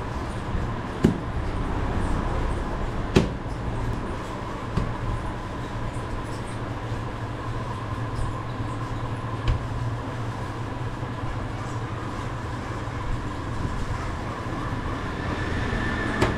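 Steady low mechanical rumble with a faint steady hum, broken by a few sharp knocks, the loudest about three seconds in, as dough is rolled out on a board with a rolling pin.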